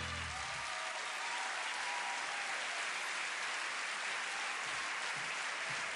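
A large audience applauding steadily. The last of the stage number's music fades out within the first second.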